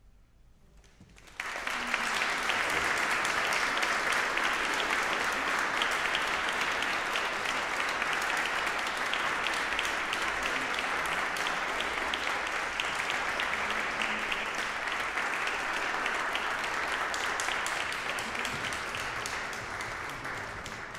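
Audience applauding. It breaks out suddenly about a second and a half in, as the last ring of the final chord dies away, holds steady and thins a little near the end.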